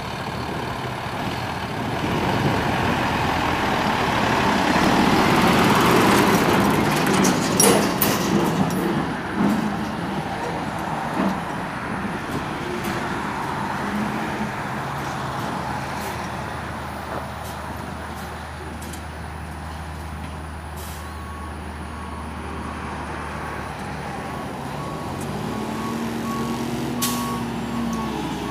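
Freightliner M2 truck's Mercedes-Benz MBE900 inline-six diesel running, swelling to its loudest about six seconds in, with short sharp air releases from the air brakes around eight seconds in. The engine then settles to a low steady run, and from about two-thirds of the way through a reversing alarm beeps steadily while the engine revs up and down.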